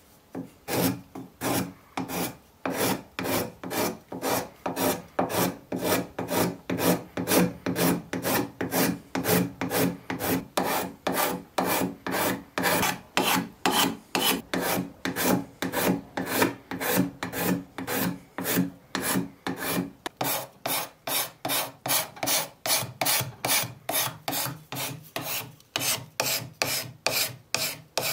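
Hand file strokes, steady and evenly paced at about two and a half strokes a second, each a rough scrape.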